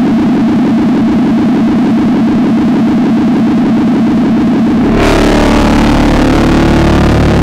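Loud electronic drone music: a dense, rapidly pulsing low-mid drone that switches abruptly about five seconds in to a fuller, rumbling texture of steady low tones under a hiss.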